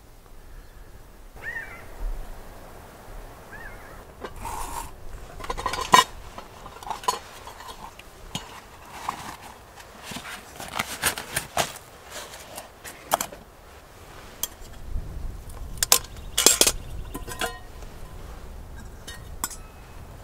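Metal camp cookware and utensils clinking and knocking as they are handled: a scattered, irregular run of sharp clinks, the loudest about six seconds in and again near sixteen seconds.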